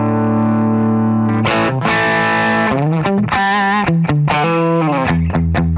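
Leo Jaymz Monsoon electric guitar played through an amplifier. A held chord rings for about a second and a half, then a run of single notes with wavering vibrato, then quick short picked notes near the end.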